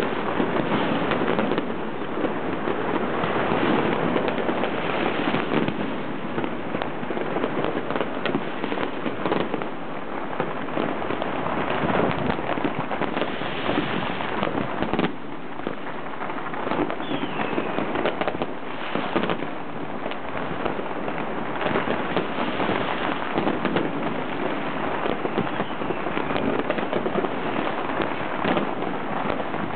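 Fireworks and firecrackers going off from many places at once, making a dense, unbroken crackle of bangs.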